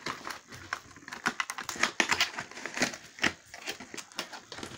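Irregular rustling and light clicks, the sound of things being handled and shifted about close to the microphone.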